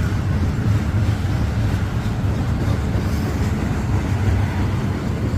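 Long Norfolk Southern freight train rolling past slowly: a steady low rumble of the cars' wheels on the rails.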